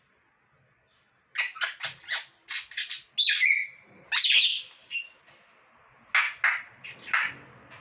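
Pet parrot squawking: a run of short, harsh calls starting about a second in, loudest in the middle, with a few more near the end.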